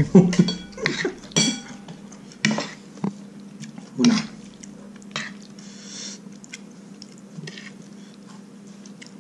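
A metal spoon clinks and scrapes against a ceramic plate as food is scooped up. Several sharp clinks come in the first second and a half, one of them ringing briefly, then single clinks every second or so that thin out towards the end.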